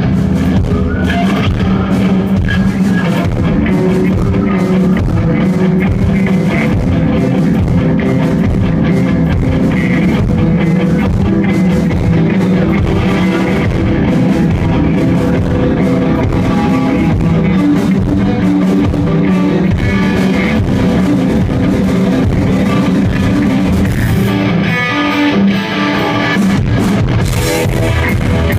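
Rock band playing live: electric guitars over a drum kit in a steady rock beat. The low end drops out briefly a few seconds before the end.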